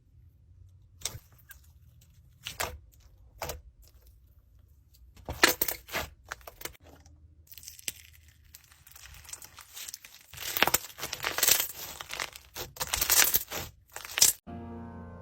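Slime being squeezed and poked by hand, giving scattered crisp clicks and crackles that grow denser and louder in the second half.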